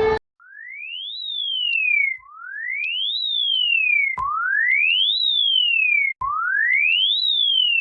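Synthesized emergency-alert siren tone: a single pure tone that sweeps quickly up and then glides more slowly back down, repeated four times about every two seconds.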